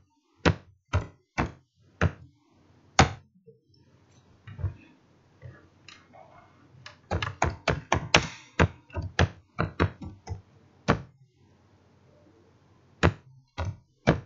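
Computer keyboard keystrokes: separate sharp clicks at an irregular pace, with a quicker run of keys about seven seconds in.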